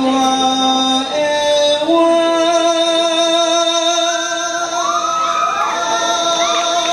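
A Dikir Barat soloist sings unaccompanied into a microphone, holding long, drawn-out notes that step up in pitch twice in the first two seconds. Over the second half, wavering ornamental turns are sung over the held line.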